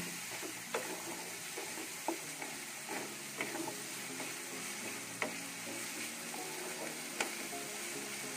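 A wooden spatula stirs a thick fish masala in a metal kadai while the sauce fries with a steady sizzle. Several sharp knocks come as the spatula hits the pan, about every second or two.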